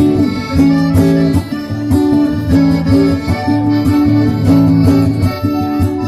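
Instrumental break of a folk song: an accordion plays a melody of held notes over a strummed acoustic guitar.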